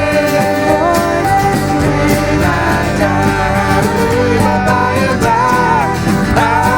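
Country-gospel worship music: guitar and other instruments playing, with singing voices.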